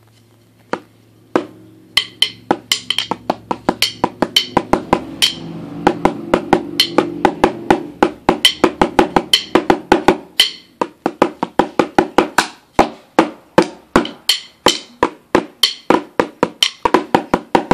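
Drumsticks striking a drum practice pad in sharp, uneven strokes with quick clusters. Played freely without a steady beat, a few single hits first and then dense playing from about two seconds in.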